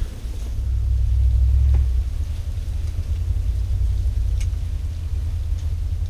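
Low, steady rumble that swells for about the first two seconds, with a few faint clicks.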